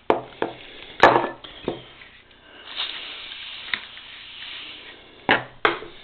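Several sharp clicks and knocks from a small carburettor and its parts being handled, the loudest about a second in and two more close together near the end, with light rubbing and rustling between them.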